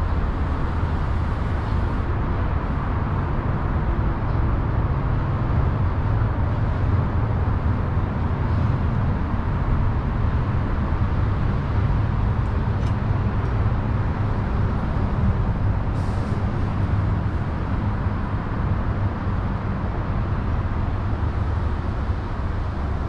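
Steady low rumble of city traffic, with a couple of faint clicks about halfway through.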